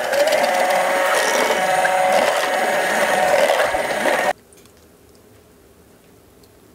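Electric hand mixer beating the bread pudding's egg mixture in a stainless steel bowl. It runs steadily for about four seconds, then cuts off suddenly.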